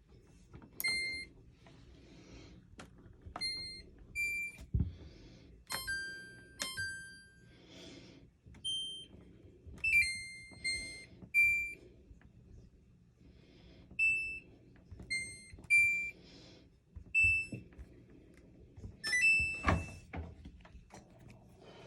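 Samsung washing machine control panel beeping as its buttons are pressed: over a dozen short electronic beeps at several different pitches, some in quick pairs, with light button clicks, a low thump about five seconds in and a louder knock near the end.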